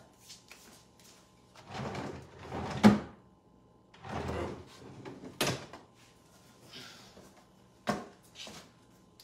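A wooden dresser drawer is slid out along its runners and lifted free. There are sliding scrapes and several sharp wooden knocks, the loudest about three and five and a half seconds in.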